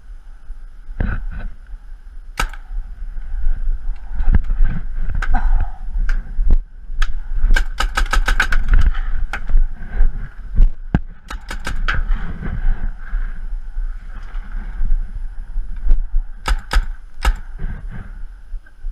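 Paintball markers firing: single sharp pops, and rapid bursts of several shots a second. A steady low rumble runs underneath.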